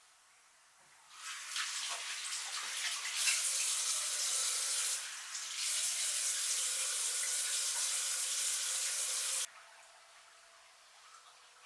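Water running steadily, starting about a second in, changing briefly about halfway, then stopping abruptly.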